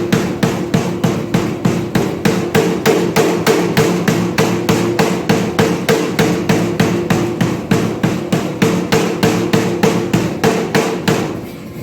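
Pneumatic power hammer (air hammer) striking a hot 5160 steel knife blank in a steady, even rhythm of about four blows a second. The blows stop just before the end.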